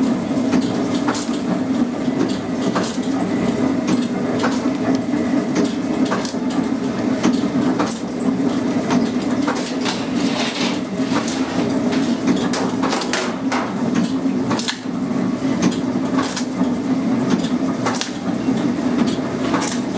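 Steady mechanical drone of bakery machinery running, with scattered clicks and clanks of metal baking trays and handling of dough.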